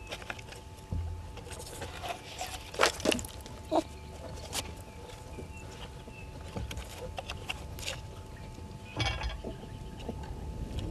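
Close knocks, taps and scrapes as vervet monkeys handle and clamber over the equipment right by the microphone, with a few sharp louder clicks about three seconds in and some dull low bumps.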